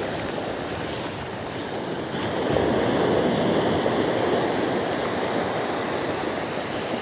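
Small waves breaking and surf washing up a beach at the water's edge, a steady rushing noise that swells louder about two seconds in and then eases off.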